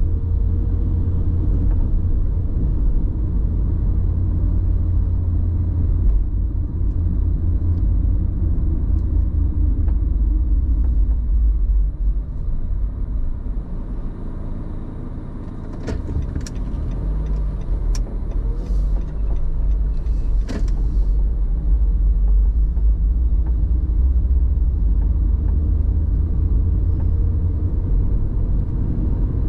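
A car driving on city roads: a steady low rumble of engine and tyres. It eases off for a few seconds about halfway through, then builds again, with a few sharp clicks soon after the lull.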